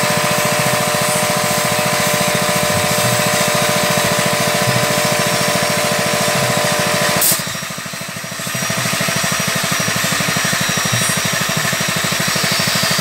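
A motor-driven machine running steadily, a loud, even hum with a fast pulse. About halfway through it briefly drops away for about a second, then picks up again.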